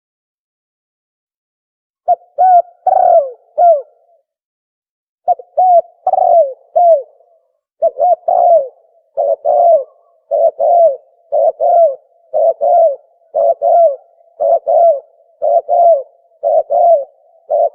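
Dove cooing call (tukmo) used as a hunting lure. Dead silence for about two seconds, then short falling coos in pairs, first in broken phrases and then settling into a steady run of about one pair a second.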